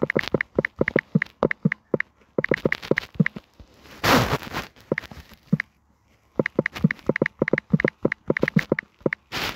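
Rapid key clicks from typing on a smartphone's on-screen keyboard, several a second, with pauses between words. About four seconds in there is a short burst of hissing noise.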